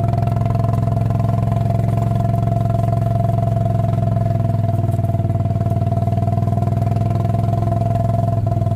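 Engine running steadily and loudly at an even speed, with no revving. It starts up just before and cuts off abruptly after.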